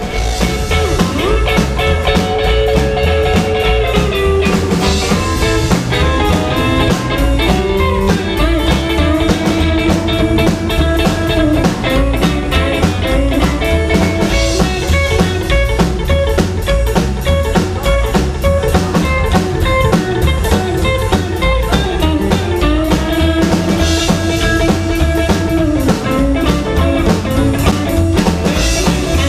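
Live band music: electric guitar over a drum kit, keeping a steady beat.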